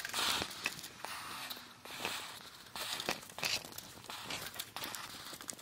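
Short, irregular scuffing and rustling handling noises, a few brief hissy scrapes a second or so apart.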